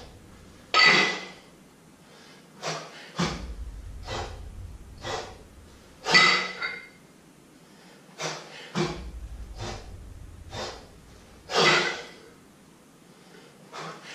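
A man breathing hard through kettlebell jerk repetitions. There are three loud, forceful exhales about five seconds apart, one with each rep, and short quick breaths between them.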